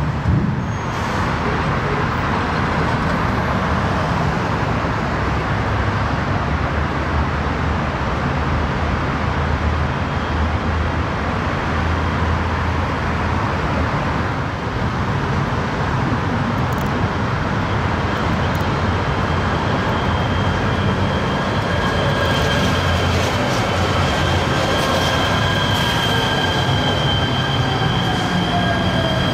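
Expo Line light rail train running with a steady rumble of wheels on rail. In the last third a high-pitched steady wheel squeal sets in, and near the end a whine falls in pitch.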